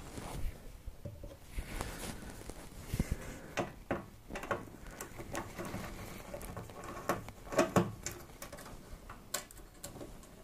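Scattered clicks, taps and knocks of hands and a hand tool working on a black metal open-air mining-rig frame during disassembly, with a louder pair of knocks about three quarters of the way through.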